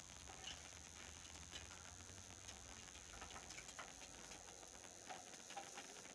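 Near silence: faint room tone with scattered, irregular light ticks and taps.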